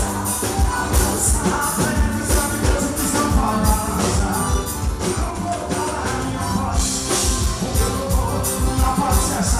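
Upbeat forró band music with a steady, fast beat.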